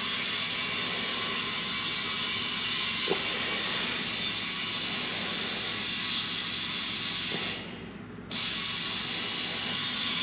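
Compressed air hissing steadily from an airline into a newly mounted Hoosier racing tire to push its bead onto the rim, the bead not yet seated. The air cuts off for about half a second near the end, then comes back.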